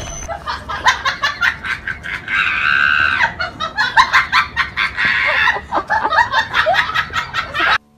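A person laughing, high-pitched cackling in rapid short bursts, with a longer squeal about two and a half seconds in; it cuts off suddenly near the end.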